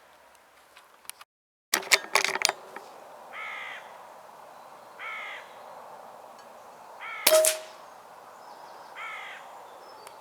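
A crow cawing four times, one short caw about every two seconds. A cluster of sharp clicks comes about two seconds in, and a single loud knock comes midway.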